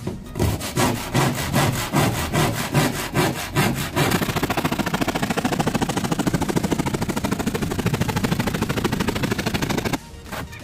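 Hand saw cutting a sheet of 9 mm plywood, about three strokes a second at first, then quickening to fast, even strokes about four seconds in, stopping just before the end.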